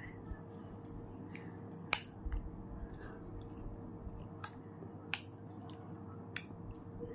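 Metal spoon clinking and scraping against a glass bowl during eating: a handful of sharp clicks spread through, the loudest about two seconds in and again about five seconds in, over a faint steady hum.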